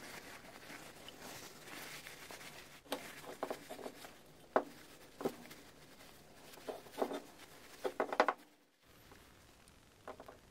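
Paper towel rubbing over a polished cast-aluminium saw housing, with a series of light knocks and clinks as the metal parts are handled. The loudest knocks come about four and a half seconds in and just before eight seconds, and it goes quieter after about eight and a half seconds.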